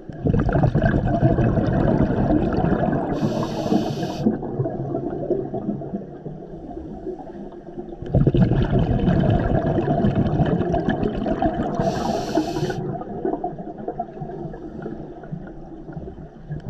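Underwater rush of a scuba diver's exhaled bubbles from the regulator, heard through the camera housing: two long breaths about eight seconds apart, each starting sharply and fading, with a brief higher hiss partway through each.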